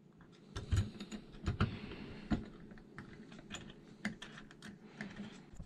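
Light, irregular clicking and tapping of a steel Allen key and tiny set screws against aluminium connector bars as the set screws are threaded into their holes by hand.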